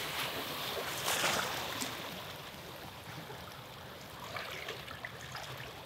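Small waves washing in on the shore, with a louder wash about a second in.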